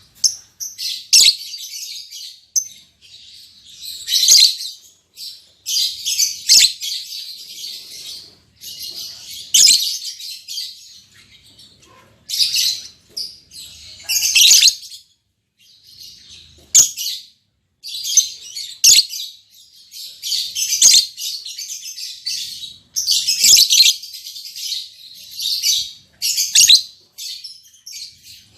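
Lovebirds chattering in repeated bursts of shrill, high-pitched chirps and squeaks, with short pauses between the bursts.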